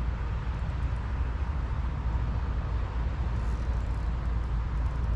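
Steady low rumble of a vehicle driving.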